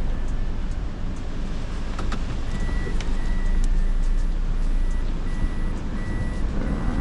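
A short, high electronic beep repeating about one and a half times a second, starting about two and a half seconds in, over a continuous low rumble.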